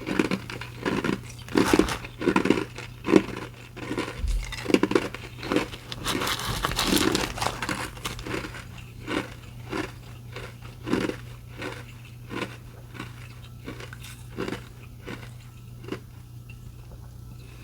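Close-up crunching and chewing of mouthfuls of restaurant-style crushed ice. The crunches come thick and fast at first, then thin out and grow fainter toward the end.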